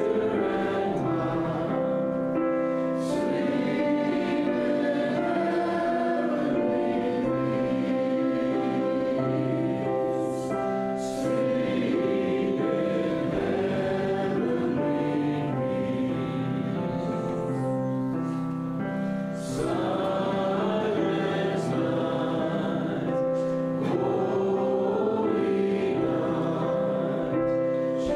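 A church congregation singing a slow hymn together, with long held notes.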